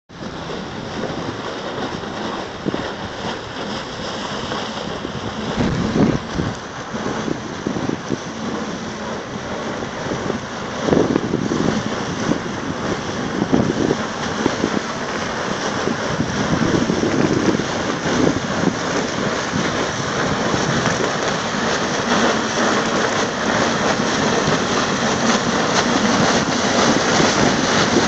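Sheet ice crunching and crackling as a tugboat's hull breaks through it: a dense crackle that swells now and then and grows louder as the boat draws near.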